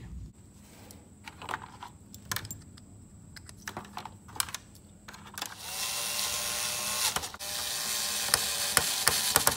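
Small plastic clicks of parts being handled, then a cordless electric screwdriver whirring in two runs while driving a Phillips screw into a plastic RC boat hull, the second run full of rapid clicking as the bit cams out of the screw head.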